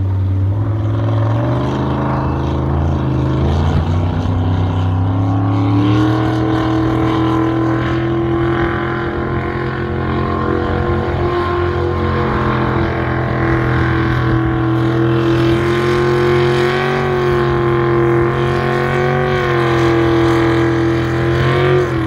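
Racing jet boat engine running hard at high revs. The pitch climbs over the first few seconds, then holds with small rises and falls, with a brief dip near the end.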